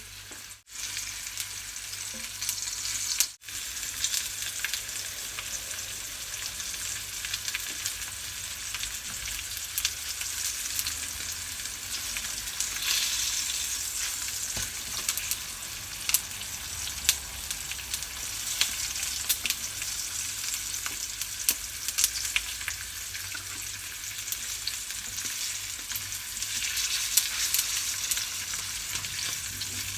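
Flour-dredged veal shanks searing in hot olive oil in a pan: a steady sizzle with scattered pops and crackles as the meat browns. The sound cuts out briefly twice in the first few seconds.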